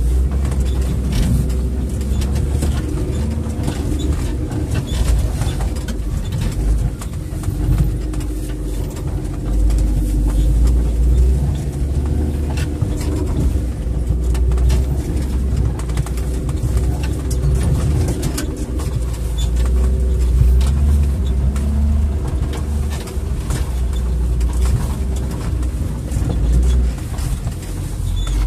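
A Jeep Wrangler's engine running steadily under load as it crawls along a rough, snowy forest track, heard from inside the cabin as a heavy low rumble. Frequent short knocks and rattles from the body and suspension run through it as the wheels go over bumps.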